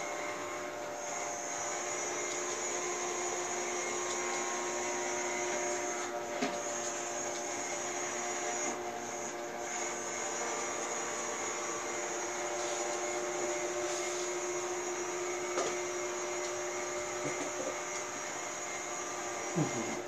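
Robot vacuum cleaner running steadily, a constant motor hum with a high hiss, with a few faint knocks along the way.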